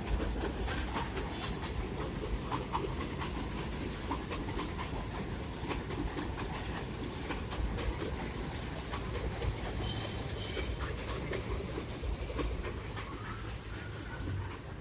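R62A subway train running on the track: a steady rumble with wheels clicking over rail joints, and a brief high wheel squeal about ten seconds in.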